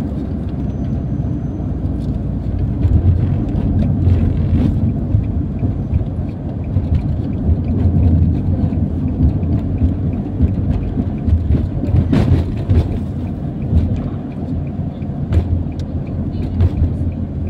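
Car driving at highway speed, heard from inside the car: a steady low rumble of road and engine noise, with a few brief clicks.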